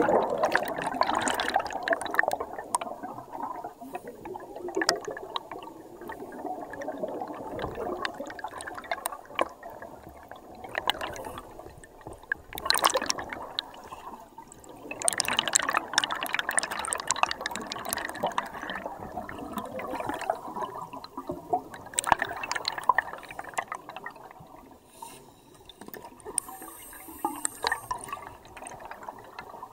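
Scuba divers' exhaled air bubbles bubbling and gurgling around an underwater camera housing. The bubbling comes in surges every few seconds.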